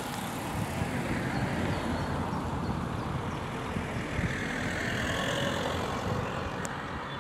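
A car driving along behind a bunch of racing cyclists, its engine and tyres giving a steady road noise over a low rumble.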